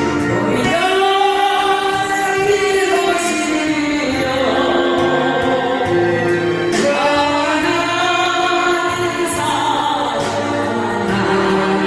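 Choir singing a slow gospel hymn in long held notes.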